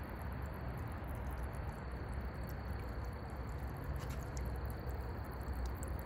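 Water from a small solar bird-bath fountain's jet splashing steadily back into the basin.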